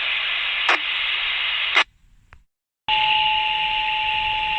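Scanner radio hissing with open-squelch static and a click. The static cuts off sharply for about a second, then comes back with a steady, high-pitched beep tone held over it.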